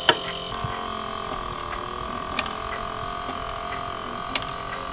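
Plastic 3D-printed clock's grasshopper escapement ticking: a sharp click just after the start, then further clicks about two seconds apart, over a steady faint hum.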